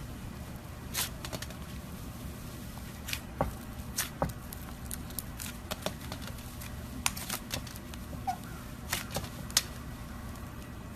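Clear slime being kneaded and pressed by hand as white clay is mixed into it, giving irregular sticky clicks and small pops over a low steady hum.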